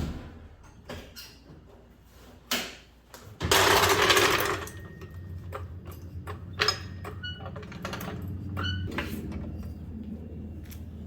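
Hand work with tools and wheel hardware during a wheel change: scattered metal clicks and clinks, some ringing briefly. About three and a half seconds in there is a louder noisy burst lasting about a second, then a low steady hum.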